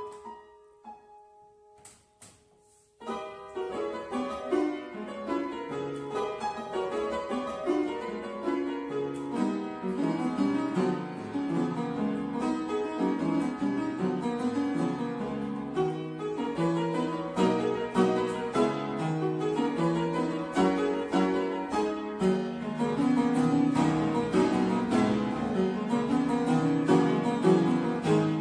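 An early-19th-century London piano by William Stodart, made around 1820, playing a lively dance. A held chord dies away, and after a short pause quick, busy playing starts again about three seconds in and carries on.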